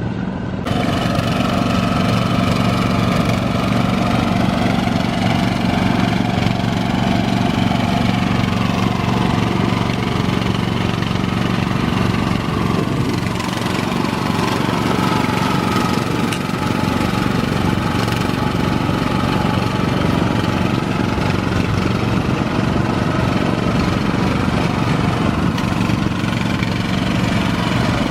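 Small engine of a rice transplanter running steadily, its level stepping up about a second in.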